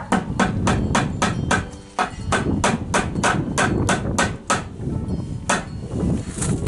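A hammer driving a nail into a wooden reindeer cutout on a wooden porch rail. It taps rapidly, about three or four blows a second, pauses briefly about two seconds in, then lands a couple of slower, spaced blows near the end.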